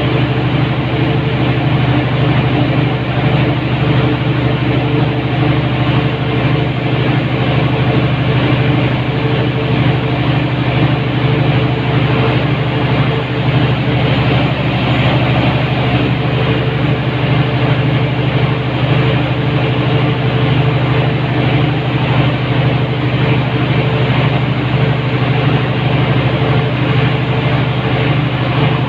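Generator set in a soundproof canopy running steadily under power, a constant engine drone with a strong low hum.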